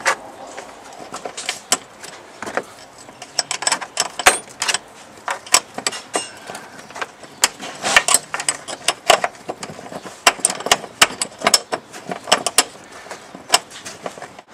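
Irregular sharp metallic clicks and ticks of an Allen wrench working a small nut snug on a pedal's shoulder bolt, metal tapping on metal.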